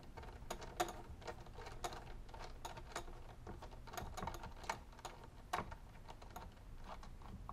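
Irregular light clicks and taps of metal parts being handled: a 92 mm throttle body and its bolts being fitted by hand against an LS2 intake manifold during a mock-up.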